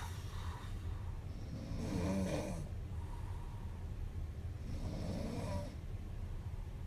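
A young woman snoring in her sleep: two drawn-out snores about three seconds apart, each with a wavering tone in it, over a steady low hum.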